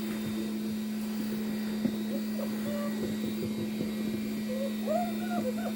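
Blow dryer running with a steady motor hum, with a few faint high puppy whines near the end.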